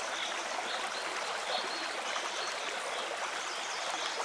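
Small taiga river running steadily over a shallow riffle, an even rushing of water.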